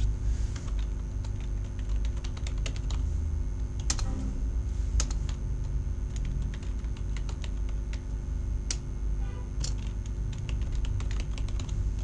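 Computer keyboard keys tapped irregularly, a few scattered clicks a second, over a steady low electrical hum.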